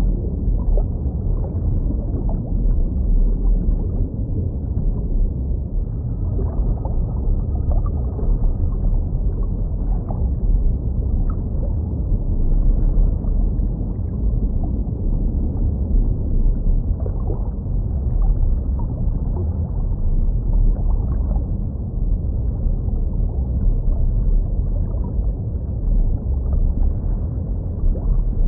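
Muffled underwater sound of a jellyfish aquarium: a steady low rumble with gurgling from the tank's circulating water, and a faint wavering tone now and then.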